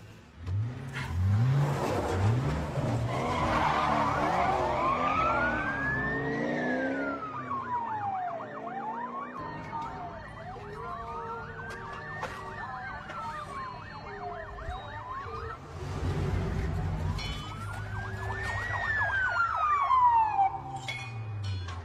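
Police car siren wailing, three slow rises and falls each lasting about six seconds. A car engine revs up repeatedly in the first few seconds.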